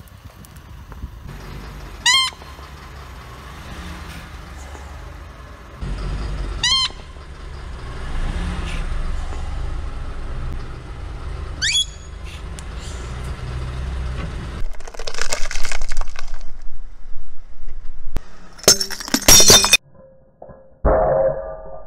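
A rubber squeaky toy lets out three short high squeals, a few seconds apart, while a car tyre rolls slowly with a low engine rumble. Near the end comes a loud crunching crash, followed by creaking as the tyre presses on plastic.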